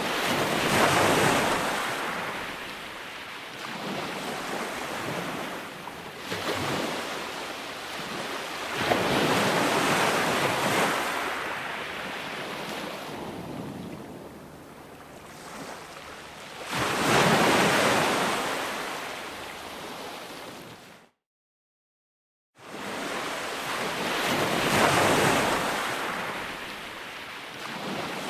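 Ocean waves washing onto a shore, a hiss of surf that swells and falls back four times, roughly every eight seconds. About three quarters of the way in the sound cuts off into a second and a half of total silence, then starts again abruptly.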